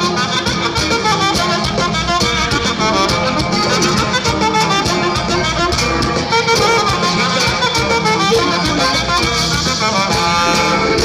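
Norteño band music playing steadily, a dense instrumental dance tune.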